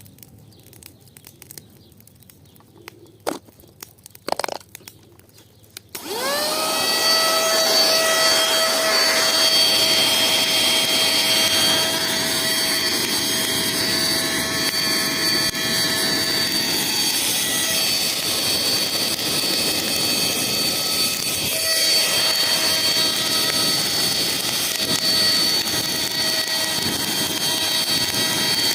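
A few light clicks of handling, then about six seconds in a cheap vacuum cleaner is switched on: its motor spins up quickly into a steady high whine over rushing air and keeps running.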